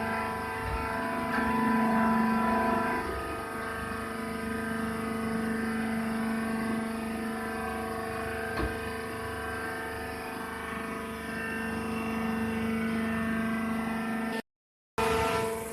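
Baler machine running: a steady motor hum with a low drone and a higher held tone over a rough rumble, with one sharp click about two-thirds of the way through. The sound cuts out briefly near the end.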